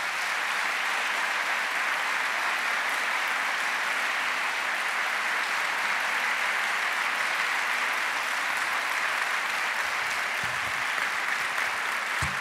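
Audience applauding steadily, with a low thump near the end.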